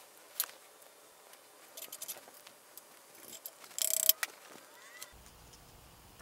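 Metal hand tools and engine hardware clicking and clinking as the connecting-rod caps are worked on. About four seconds in there is a short, louder metallic clatter that leaves a brief ring.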